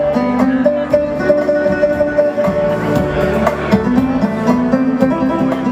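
Live instrumental dance music played on an electronic keyboard, with long held notes over a steady beat.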